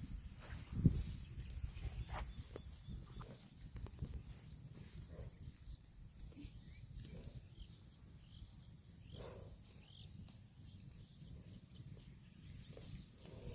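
An insect trills at a high pitch in pulsing runs, over a low rumble with scattered soft clicks. A single dull thump comes about a second in.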